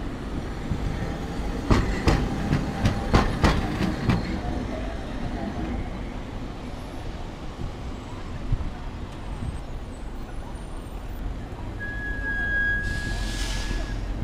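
Hankai Tramway streetcar passing, its wheels clacking sharply about eight times in quick succession over the rail joints and crossing, then steady city street noise. Near the end a steady high-pitched tone lasts about two seconds, with a hiss over it.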